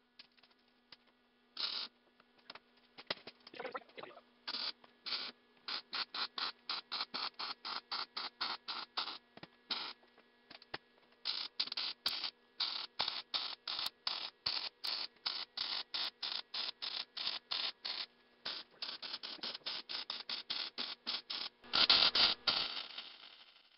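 Wire-feed welder arc crackling in a long run of short stitch-welding bursts, about two to three a second, welding angle iron. A louder, longer burst comes near the end.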